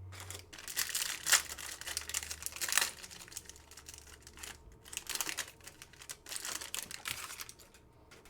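Wrapper of a Prizm football card pack crinkling and tearing open by hand, in a run of uneven rustling bursts that stop near the end.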